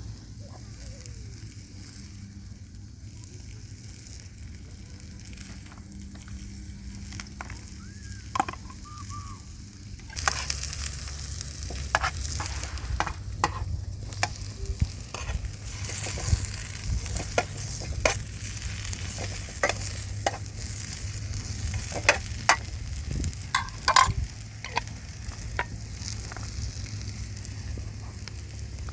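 A steady sizzling hiss that jumps louder about ten seconds in, with many scattered clicks and crackles.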